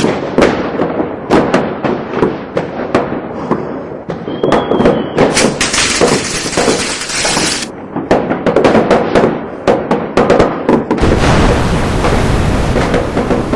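Fireworks going off: a dense run of sharp bangs and crackles, with a short whistle about four seconds in and stretches of hissing, the loudest starting near the end together with a deep rumble.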